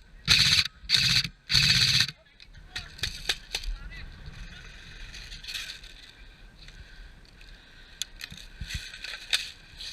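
Three short bursts of airsoft gun fire in the first two seconds, each under half a second long, then quieter scattered sharp clicks and pops.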